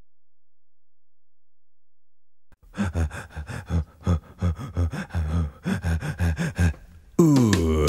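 After a silent start, a low voice panting in short, rhythmic breaths, about two or three a second. Near the end, music comes in with a falling sweep.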